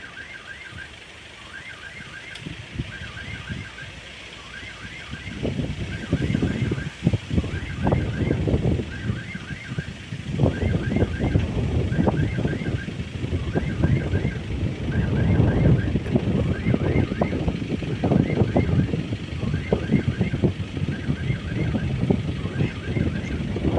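Railway level-crossing warning signal sounding repeatedly: a short electronic chirping tone group about every second and a half. Under it, from about five seconds in, the rumble and clatter of a passing train grow louder.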